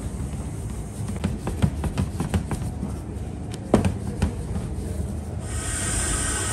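Wooden rolling pin rolling back and forth over a stainless-steel table as dough wrappers are rolled out: a low rumble with a run of sharp clacks. Near the end it gives way to a steady hiss with a faint high hum.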